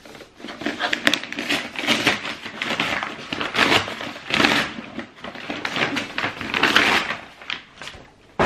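Brown paper parcel wrapping being slit with a box cutter and torn open by hand, in loud, irregular bursts of rustling, crackling and tearing paper.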